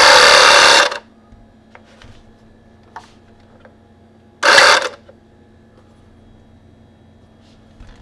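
Portable 12-volt air compressor feeding air through its hose into the water-softener tank's air valve, heard as two short loud bursts of rushing noise: the first cuts off about a second in, and the second, about half a second long, comes near the middle. Between them there is only a faint steady hum and a few light clicks.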